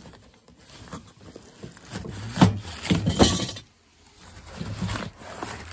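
A run of clattering knocks and rattles, loudest about two and a half and three seconds in, with a few softer knocks near the end.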